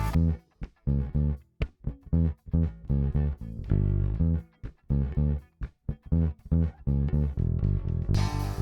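Lakland Skyline 44-64 four-string bass with passive EMG GZR-PJ pickups, played solo and recorded direct through a preamp set flat: short, clipped notes with brief silences between them. Near the end it changes to a brighter, ringing passage of sustained notes.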